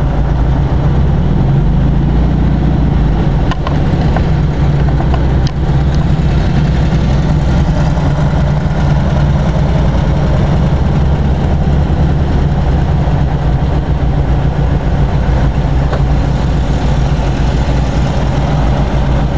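Air-cooled Volkswagen engines of classic Beetles and Type 2 buses running at crawling speed: a steady low drone.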